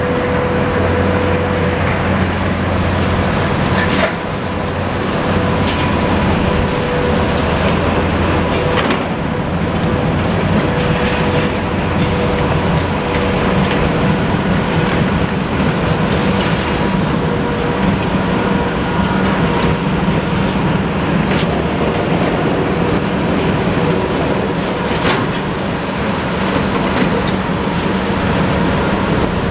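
Heavy tracked excavators working on a demolition site: a steady loud drone of diesel engines and machinery, with short knocks and clanks every few seconds.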